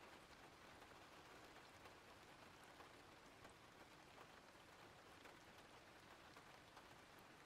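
Faint, steady rain: an even hiss with scattered soft drop ticks.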